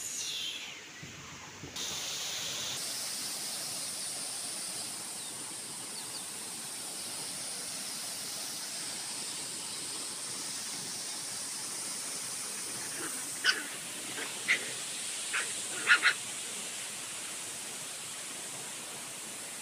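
Steady outdoor background hiss. A handful of short, sharp calls come about two-thirds of the way through, the last two close together and the loudest.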